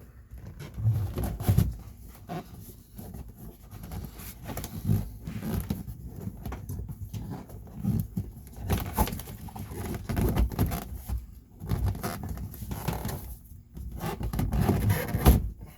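Plastic C-pillar trim cover being worked onto the rear pillar inside a car: irregular knocks, taps and rubbing as it is pushed and pressed to snap into place, with a sharper knock near the end.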